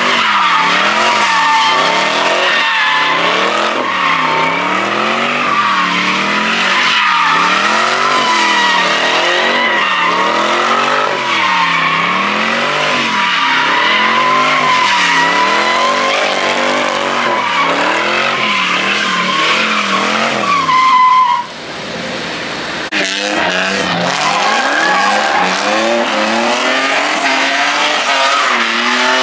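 Car drifting with its tires squealing continuously while the engine revs rise and fall about once a second. The squeal and engine break off briefly about 21 seconds in, then pick up again.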